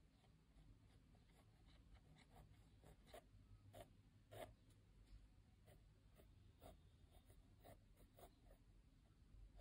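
Faint scratching of a mechanical pencil with 2B lead on sketchbook paper: short, quick sketching strokes coming irregularly several times a second, a few stronger ones around the middle.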